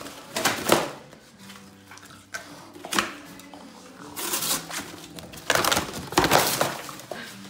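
A dog biting and ripping at a cardboard box: several bursts of tearing and crumpling cardboard, the longest and loudest near the end.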